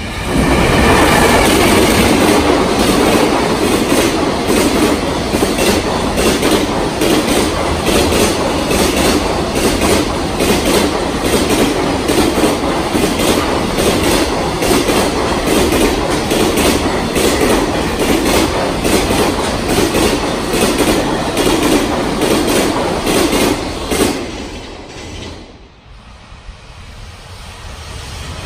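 Freight train of container wagons passing close at speed, its wheels clattering over the rail joints in a fast, steady rhythm. Near the end the sound cuts off and a second train is heard approaching, growing louder.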